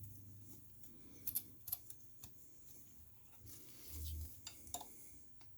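Faint, scattered metallic clicks and clinks of a hand tool working the screws that hold a lathe chuck's back plate to the spindle, with a low dull bump about four seconds in.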